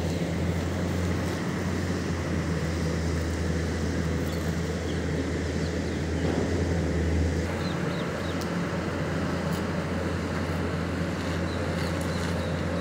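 Heavy diesel machinery running steadily, a deep, even engine hum that shifts slightly about seven and a half seconds in.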